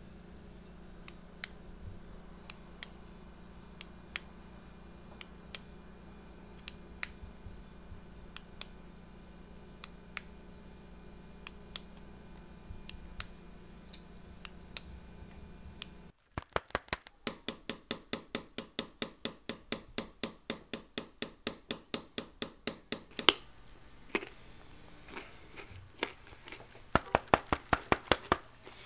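Sharp clicks: at first single clicks every half second to a second over a steady low hum, then, after the sound cuts out about halfway, louder fast clicking at about four a second for some six seconds, and another short run of fast clicks near the end.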